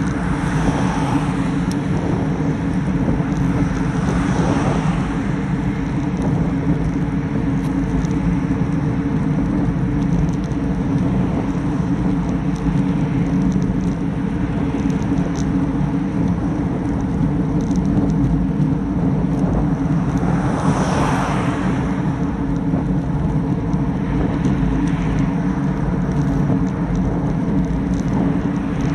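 Wind noise and tyre-on-road rumble picked up by a handlebar-mounted action camera on a road bike at about 20 mph, steady throughout. Passing cars swell up and fade three times, the clearest about two-thirds of the way through.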